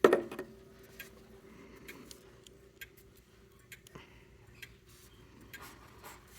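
King Arthur grandfather clock ticking softly, roughly one or two ticks a second, after a brief sharp knock right at the start. No chime sounds yet.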